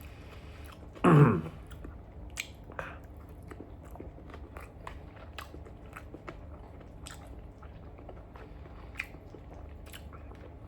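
A person chewing a mouthful of beef chow fun noodles close to the microphone, with many small wet mouth clicks. About a second in comes a short hum from the throat that falls in pitch.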